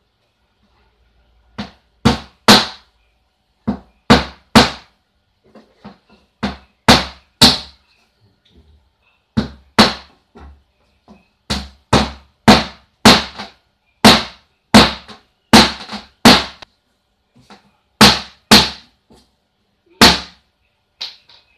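Small hammer driving nails into a wooden board: sharp, ringing blows in quick groups of two or three, with short pauses between groups.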